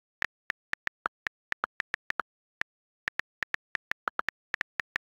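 iPad on-screen keyboard key clicks as a sentence is typed: about two dozen short, crisp ticks at an uneven typing pace, with a brief pause partway through.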